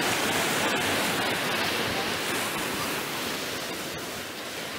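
Ocean surf breaking and washing up the sand, a steady rush that eases slightly near the end.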